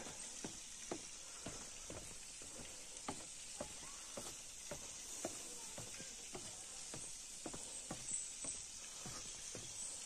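Footsteps of a hiker descending wooden stairs and then a rocky trail, about two steps a second, over a steady high hiss.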